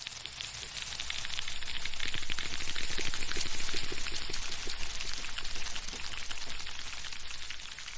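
A dense crackling, pattering sound effect, like rain or sizzling, that swells over the first three or four seconds and then slowly fades.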